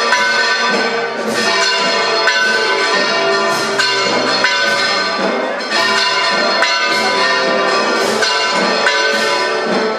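Church bells ringing, several bells struck over and over at irregular intervals with their tones ringing on and overlapping.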